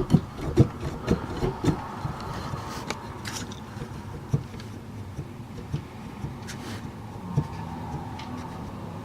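Hands handling parts inside an opened Mellotron M4000D's wooden case: a run of sharp knocks and clicks in the first two seconds, then scattered taps and light rubbing.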